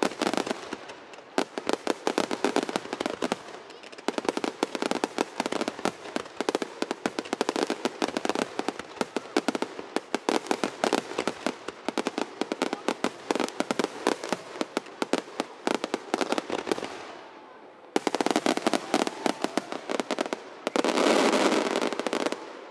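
Fireworks finale: a rapid, continuous barrage of shell bursts, bangs and crackles. It dies down briefly about two-thirds of the way in, then resumes in a final flurry that ends in a dense, continuous rush of sound near the end.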